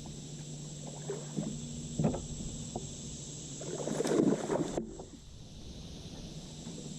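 Light knocks and bumps on a fishing kayak, with a louder rustling, splashing burst about four seconds in that stops suddenly.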